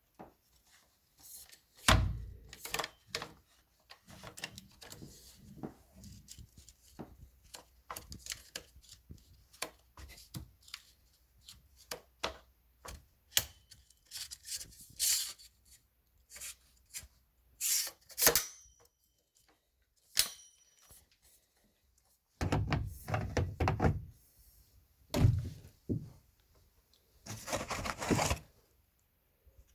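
Irregular clicks, knocks and thunks of hard objects being handled, with a few longer scraping, rustling stretches near the end.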